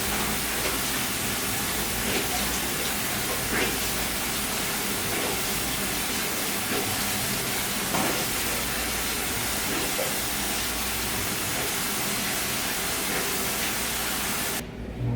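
Steady hiss of noise with a few faint clicks.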